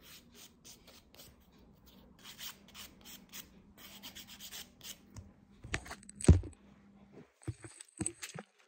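A 100/180-grit nail file rasping across a fingernail in short strokes, about three a second, buffing the nail surface. About six seconds in comes a louder thump, followed by a few light clicks as the file is set down.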